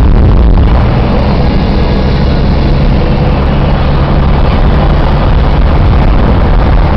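Car driving along a gravel road: a steady engine hum under loud, constant road noise.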